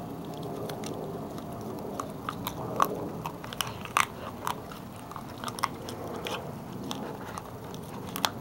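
Pit bull puppy gnawing on a dried pig ear, with irregular sharp crunches and cracks as its teeth work the chew, most of them in the middle.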